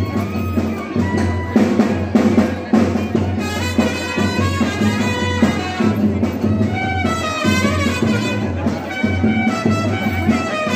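Music: a melody over drums, running without a break.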